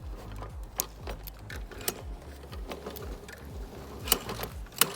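Toro walk-behind lawn mower being pull-started on its new recoil cord: a steady low rumble with irregular mechanical clicks and rattles.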